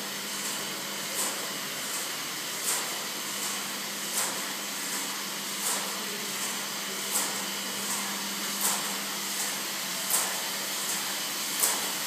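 Rebuilt Colossus codebreaking computer running: a steady whirring hiss over a low hum, with a brief louder swish that comes round regularly about every second and a half.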